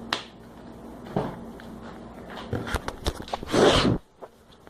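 Taps and knocks from handling a talc powder container over slime, then a loud half-second rush of noise about three and a half seconds in that cuts off suddenly.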